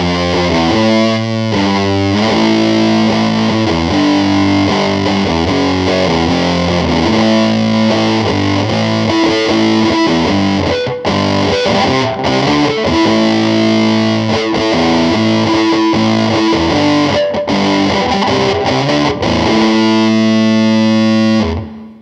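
Telecaster electric guitar played through the Line 6 Helix's Bighorn Fuzz, a model of the Ram's Head Big Muff, playing a heavily fuzzed riff of chords and notes with a few short breaks. Near the end a chord is held, then cut off sharply.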